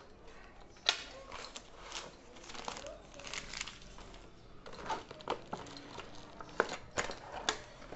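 Clear plastic packaging bag crinkling and rustling as hands work it open around a boxed pencil sharpener, with a few sharp clicks, one about a second in and two near the end.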